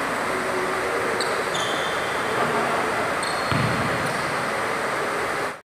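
Steady noisy hiss of a large gym hall, with a basketball bouncing once on the hardwood court about three and a half seconds in and a few short high squeaks; the sound cuts off abruptly near the end.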